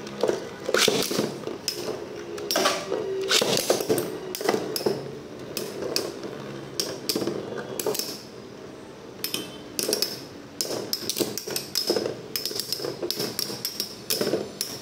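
Beyblade tops launched with a ripcord launcher, then three metal-wheeled Storm Pegasus tops spinning in a plastic stadium, clacking against each other and rattling against the stadium walls in quick, irregular hits.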